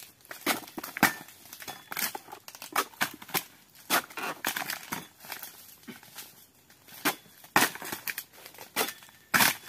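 Long-poled chisel blade chopping into oil palm frond bases, with repeated sharp strikes at irregular intervals and the crackle and rustle of fronds tearing loose. The strikes are loudest near the end. The fronds are being pruned from an overgrown palm.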